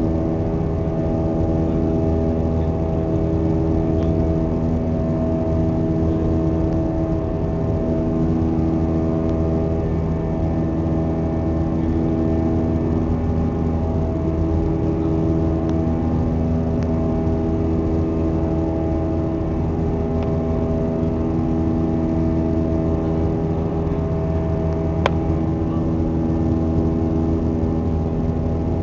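Airbus A321-200's jet engines heard from inside the passenger cabin during the climb after takeoff: a steady drone with several low humming tones that slowly swell and fade. A brief click near the end.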